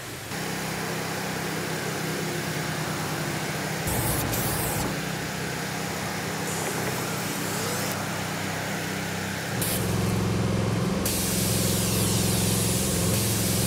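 A steady low engine hum with a hiss over it, changing abruptly a few times and louder from about ten seconds in.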